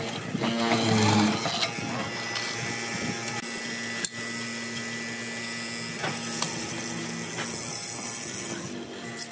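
Hollow-chisel mortiser running, its square chisel and auger boring a mortise into a block of wood, with a steady motor hum. The first second or so is louder, and there is a single sharp click about four seconds in.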